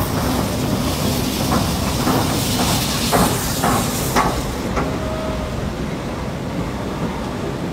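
Squid-jigging fishing vessel running down a launch slipway: a loud rushing hiss with a string of sharp clacks, the high hiss cutting off about two-thirds of the way through and leaving a lower rumble.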